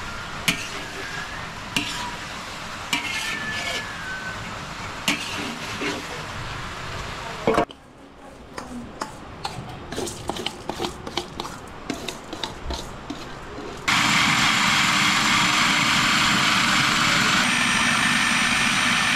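Metal spoon scraping and clinking against a steel wok as meat fries and sizzles, in several short cuts. The last few seconds hold a louder, steady hiss.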